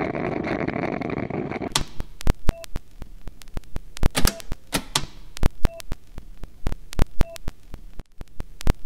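Electronic end-card sound effects: a dense hiss-like noise that cuts off suddenly under two seconds in, then sharp clicks at irregular intervals, several followed by short beeps.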